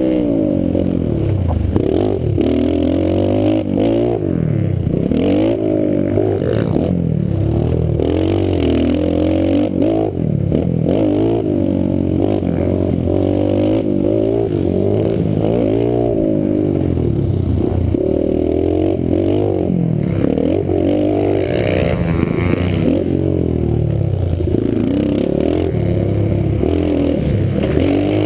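Pit bike's small single-cylinder engine revving up and down over and over as the throttle is opened and closed through the turns and jumps, heard close up from a camera on the bike.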